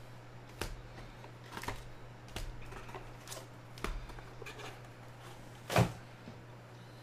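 Foil trading card packs and a cardboard hobby box being handled, with short rustles and light taps about once a second. One louder thump near the end as the packs or box are set down on the table.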